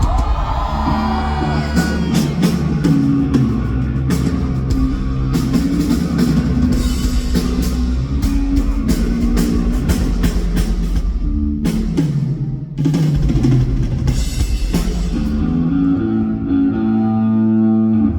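Rock band playing live: drum kit, bass and electric guitars, ending on a held chord.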